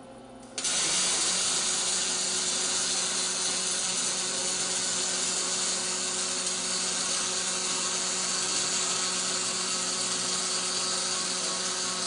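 A robotic MIG welding arc strikes suddenly about half a second in and then burns steadily: a loud, even hiss from the wire-fed torch, with a faint steady hum underneath.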